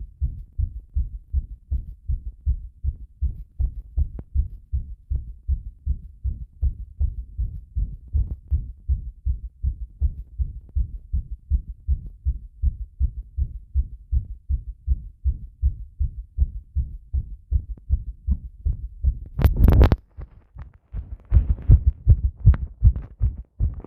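Human heartbeat picked up close against the chest: a steady, even run of low thumps. About three-quarters of the way in, a brief loud scrape of the pickup against the skin breaks in, and the beats then come through sharper.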